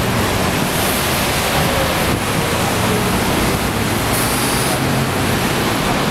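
Steady, loud rushing noise of street traffic on a wet road, with tyres hissing on the wet surface and a low engine hum from passing buses and cars.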